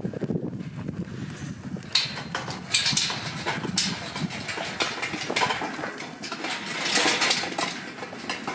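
A mob of sheep moving, their hooves shuffling and clattering with many quick knocks from about two seconds in, over a low rumble at the start.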